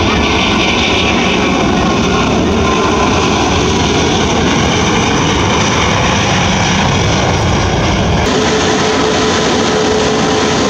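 Jet airliner's engines running loud and steady. About eight seconds in the sound changes abruptly: the deep rumble drops away and a brighter hiss with a steady hum takes over.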